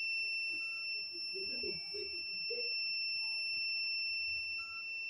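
A steady high-pitched electronic whine, with a short beep a little under a second in and another near the end, and faint low sounds in between.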